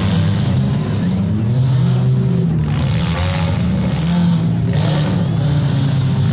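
Several demolition derby cars' engines revving hard at once, their pitch rising and falling as they accelerate and back off.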